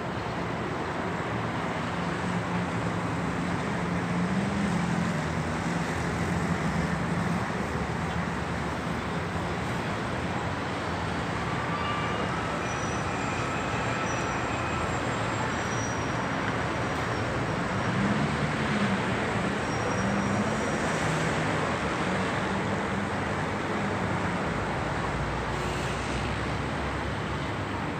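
City street traffic: a steady wash of tyre and engine noise from passing cars, buses and trucks, with the engine hum swelling twice as heavier vehicles go by.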